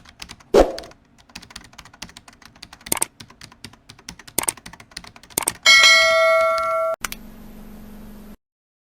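A run of rapid light clicks with a few louder clacks, like typing, then a single bell-like ding that rings for about a second, followed by a low hum that stops suddenly.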